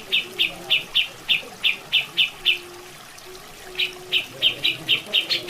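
Grey-cheeked bulbul (cucak jenggot) calling in runs of short, sharp notes, about three a second, pausing for about a second midway. Running water plays in the background.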